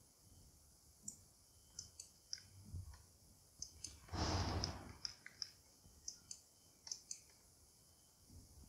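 Computer mouse and keyboard clicks: scattered single sharp clicks, a dozen or more over several seconds. A short breathy rush of noise about four seconds in is the loudest sound.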